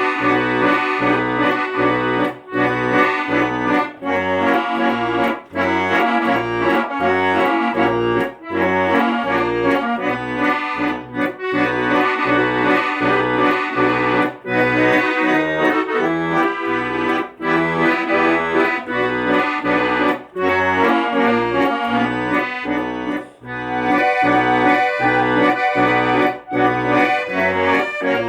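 Instrumental music without singing: a melody and chords over an even, regularly pulsing bass line, with brief breaks between phrases.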